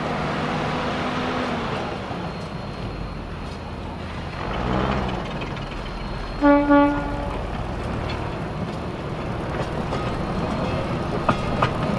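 Galloping Goose No. 7 rail motor car approaching on narrow-gauge track with its engine running, giving one short toot on its horn about six and a half seconds in. Two sharp clicks near the end.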